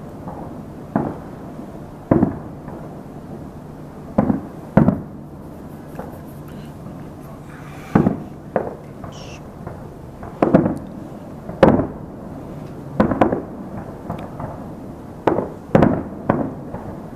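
Distant aerial firework shells bursting in an irregular series of booms, one every second or two, each trailing off in an echo.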